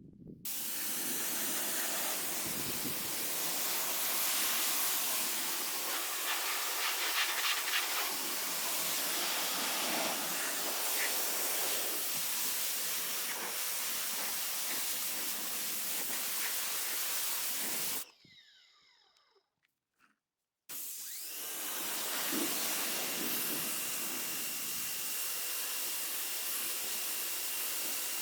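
High-pressure water jet from a Sun Joe SPX3000-QW2 electric pressure washer, spraying with a steady hiss. It breaks off for a couple of seconds about two-thirds of the way through, then sprays again.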